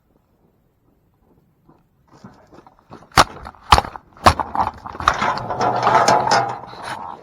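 Four sharp metal knocks and clangs from a cattle head chute and its gates, about half a second apart, then a louder stretch of rattling and banging as a heifer shifts in the steel chute.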